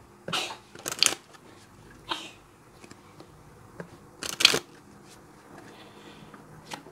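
Tarot cards being shuffled and handled: a few short rustling, slapping strokes of card against card, the loudest a little past the middle.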